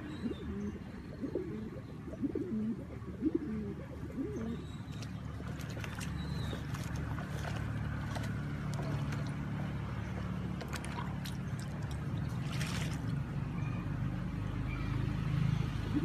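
Fancy pigeons cooing low in the first few seconds, then splashing and wing-flapping as they bathe in a shallow tub of water, with several sharp splashes and a longer flurry near the end, over a steady low hum.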